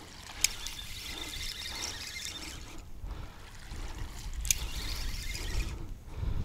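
A hooked snakehead being reeled in and dragged through shallow, grassy water: faint splashing and swishing, with a low wind rumble on the microphone and two sharp clicks, one near the start and one about two-thirds through.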